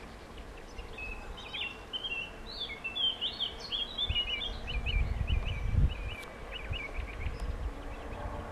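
A songbird singing a quick run of chirping phrases for several seconds, with gusts of wind rumbling on the microphone, strongest just past the middle.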